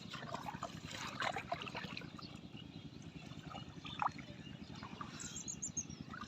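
River water trickling and splashing irregularly, with a sharper splash about four seconds in, over a steady low background noise. A quick run of high chirps sounds near the end.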